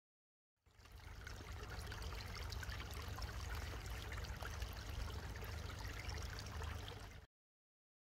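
A small rivulet of water trickling over stones in a shallow channel beside a grassy path, with a low rumble underneath. It starts abruptly just after the start and cuts off suddenly about a second before the end.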